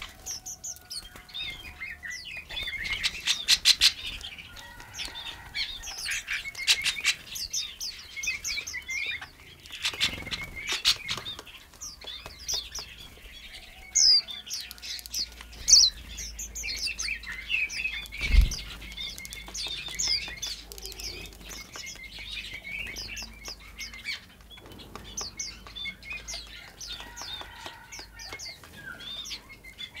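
Small songbirds chirping and twittering at a seed feeder, with short high whistled notes. There are bursts of wing flutter as birds fly in and out, and a single dull thump about eighteen seconds in.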